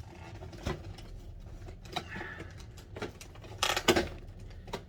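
Cardboard box packaging being handled and torn apart: scattered rustles and clicks, with a louder tearing rustle about three and a half seconds in.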